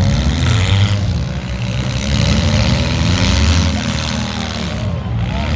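Demolition derby car engines running loud, revving so that their pitch rises and falls, several at once.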